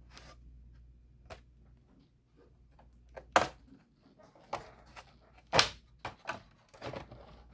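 Plastic clips of an HP Envy 17 laptop's bottom cover snapping loose as the panel is prised off with a flat-head screwdriver: a string of sharp clicks and cracks, the loudest about three and a half and five and a half seconds in.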